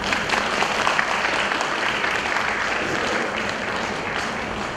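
Audience applauding: a dense crackle of many hands clapping that starts suddenly and gradually thins out toward the end.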